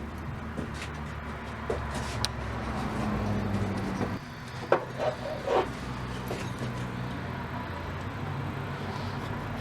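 A steady low hum with a few light knocks and clicks scattered through it, as tools and the hammer are handled on the bench.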